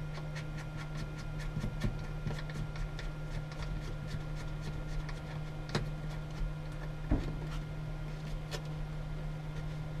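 Small clicks and taps of hands handling and fitting a 12 V / USB outlet into a wooden ceiling panel. There is a run of faint ticks, with a few sharper clicks about six, seven and eight and a half seconds in, over a steady low electrical hum.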